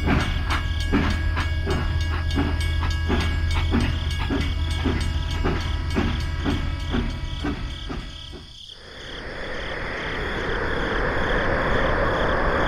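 A small machine running with a steady hum and a regular clacking about one and a half to two times a second; it cuts off suddenly near the end, giving way to a steady hiss.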